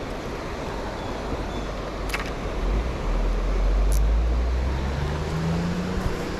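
A road vehicle passing close by. Its low engine rumble swells from about three seconds in, over a steady rushing noise.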